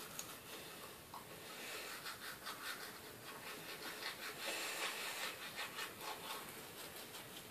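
Manual toothbrush scrubbing teeth with toothpaste: faint, quick back-and-forth brushing strokes.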